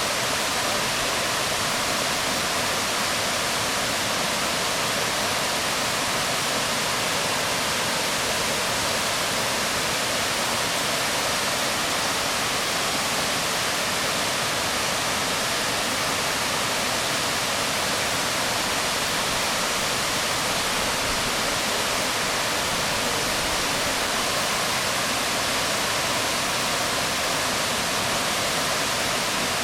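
Waterfall falling onto rocks: a steady, unbroken rush of water.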